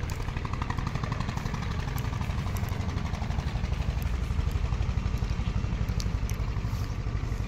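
A vehicle engine idling, a steady low rumble with a fast even pulse.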